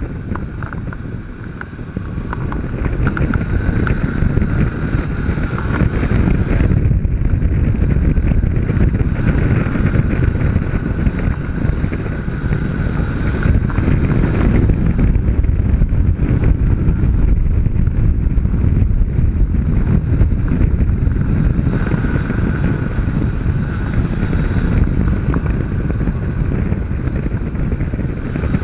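Honda CB500 parallel-twin engine running at speed, largely buried under heavy wind noise on the bike-mounted camera's microphone. The level dips briefly near the start, then rises and stays steady.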